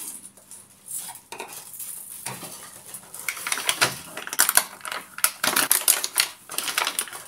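Thin clear plastic packaging film crinkling and crackling as it is handled and peeled back from a blister tray of toys, with small plastic clicks. The crackling gets busier about three seconds in.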